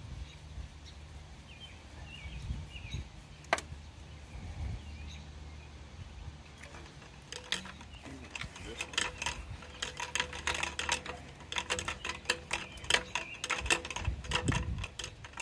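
Dense run of light, irregular clicks and taps from plastic pool plumbing being handled: PVC pipe and union fittings knocking and threading together, starting about seven seconds in. A few faint bird chirps come before it, over a steady low hum.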